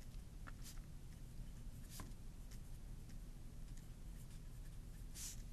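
Pen writing on lined notebook paper: faint, short scratching strokes, the clearest about two seconds in and near the end.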